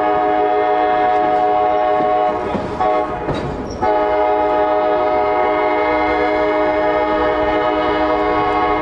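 Alco diesel locomotive's air horn sounding a chord: a long blast, a short one about two and a half seconds in, then another long blast held through the end, over the low rumble of the train rolling on the rails.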